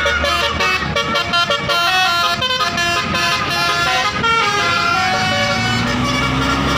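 Bus telolet horn, a Basuri multi-tone electric horn, playing a quick melody of stepping notes over the low rumble of the bus engine. Near the end the engine's pitch rises slowly as it speeds up.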